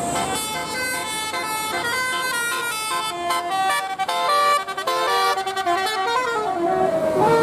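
Bus 'telolet' horn, a multi-tone musical air horn, playing a quick melody of short stepped notes, ending on a long note that slides down in pitch.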